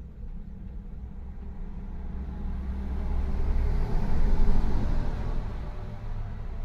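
Low rumble of a moving vehicle's engine and tyres heard from inside the cab, swelling louder a few seconds in and easing off near the end.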